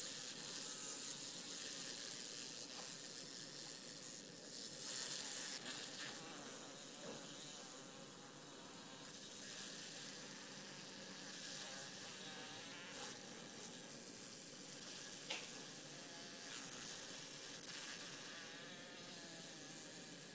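A large fly buzzing in fits and starts as it struggles against a small spider, over a steady background hiss.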